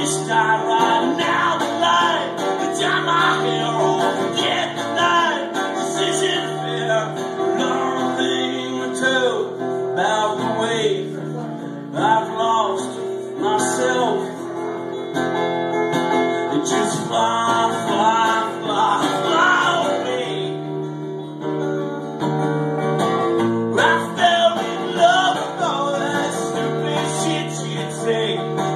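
A man singing while strumming an acoustic guitar, with a short stretch of guitar alone about three-quarters of the way through.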